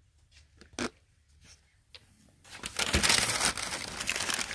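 A light knock, then from about halfway through, crumpled newspaper packing paper crinkling and rustling as it is handled.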